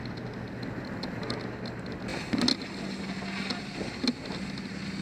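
A vehicle engine running steadily, with clatter and a couple of sharp knocks about two and a half and four seconds in.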